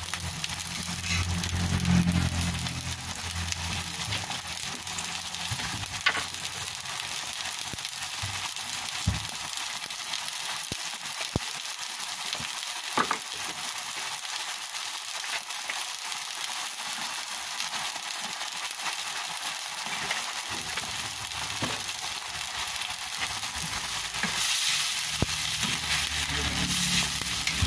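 Food frying in hot oil in a pan, a steady sizzle, with a few sharp clicks from stirring.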